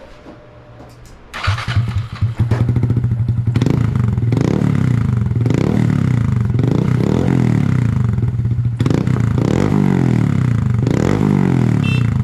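2022 Honda Grom's 124 cc single-cylinder engine, breathing through an aftermarket Amazon exhaust with its baffle removed, starts about a second and a half in. It then runs loud, with a series of quick throttle blips.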